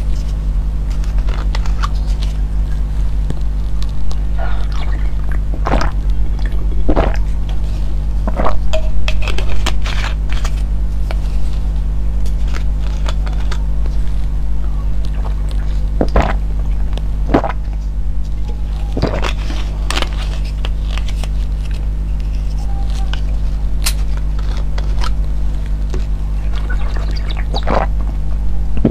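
A steady low hum throughout, over which come scattered sharp clicks and crackles from small plastic bottles of cola-flavoured candy granules being handled, with the candy tipped into the mouth near the end.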